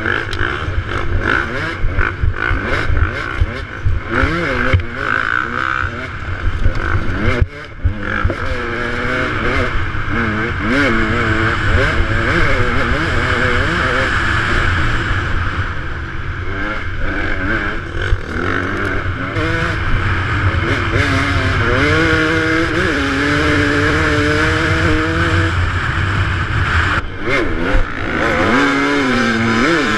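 KTM 200 XC-W two-stroke dirt bike engine, heard from the rider's helmet, revving up and down repeatedly as it is ridden hard along a rough trail, with short knocks and clatter from bumps.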